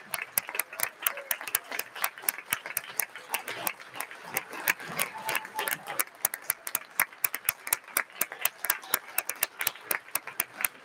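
Audience applauding, many separate hand claps close together, with crowd chatter underneath.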